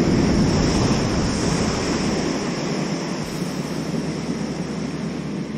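Sea surf on the shore: a wave breaking and washing in, loudest at the start and slowly easing into a steady rush.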